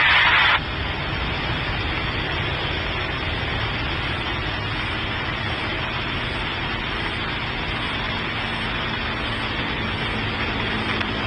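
CFM56-powered Airbus A320 jet engines at takeoff thrust, heard from a distance as a steady, even rush of noise while the airliner climbs away. A louder hiss in the first half-second cuts off abruptly.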